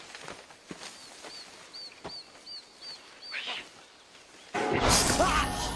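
Jungle ambience with scattered rustles and steps through undergrowth and a bird chirping a quick run of about seven short high notes. Near the end a man shouts loudly.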